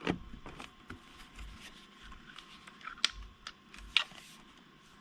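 Scattered light clicks and knocks of a Mac Mini G4's case being handled after it is snapped back together, the loudest right at the start and two sharper ones about three and four seconds in.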